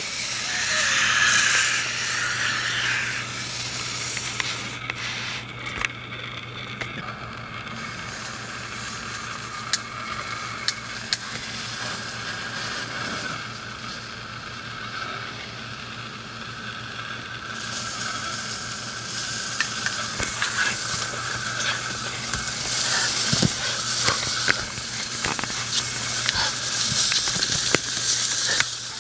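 Handheld sparklers burning: a crackling fizz with scattered sharp ticks, loudest in the first few seconds.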